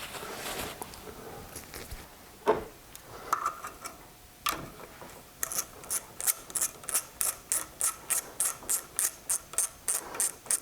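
Ratchet wrench clicking in an even run of about three to four clicks a second, starting about halfway through, after a couple of single knocks.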